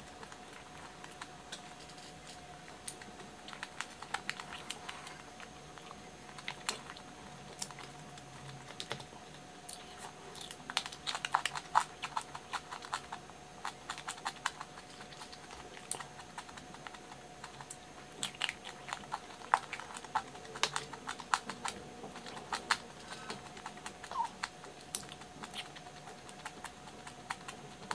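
Close-miked chewing and crunching of food: a run of crisp clicks and crunches, busiest about ten to thirteen seconds in and again around eighteen to twenty-three seconds.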